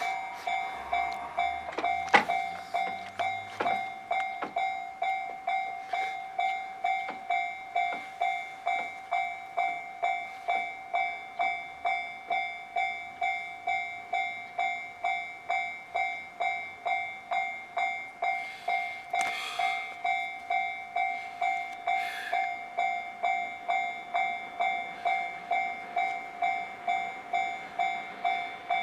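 Japanese railway level-crossing warning bell dinging in a fast, even, unbroken rhythm, signalling that a train is approaching. A couple of short rushes of noise come through about two-thirds of the way in.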